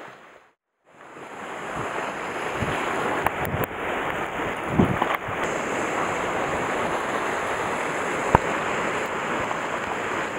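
Sea waves washing against a rocky shore, with wind buffeting the microphone, after a moment of silence right at the start. A few small clicks and knocks from fishing tackle being handled stand out, the sharpest near the end.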